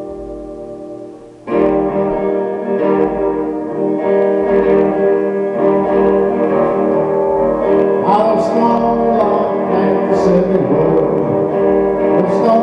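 Slow, improvised blues jam on guitar. A held chord fades away, then about a second and a half in a new chord is struck and the playing carries on, over a soft low beat about once a second.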